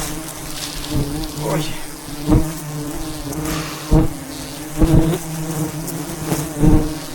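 A swarm of wild honeybees buzzing around their hive in a steady hum, with several brief, louder buzzes rising out of it.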